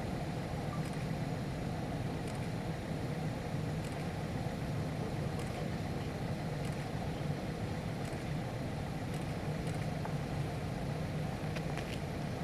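Steady low drone of a Yak-40 flying testbed's two Honeywell TFE731-5B turbofan engines as the aircraft flies in on approach with its landing gear down.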